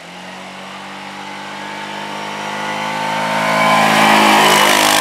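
Yamaha Rhino 700 side-by-side's single-cylinder engine running at a steady pitch in stock form as it drives closer, growing steadily louder.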